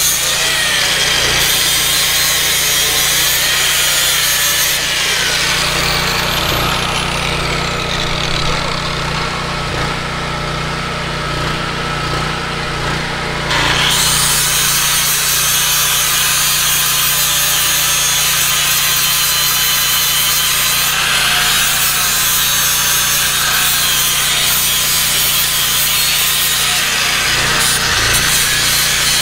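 Angle grinder with a flap disc grinding a steel truck frame clean before welding, a continuous rasping whine that lets up for several seconds in the middle with its pitch falling, then resumes. A small engine hums steadily underneath.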